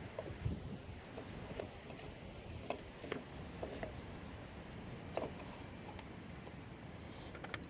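Faint, scattered light clicks and taps of a thermostat housing cover and its screws being handled as the cover is set back in place over the new thermostat.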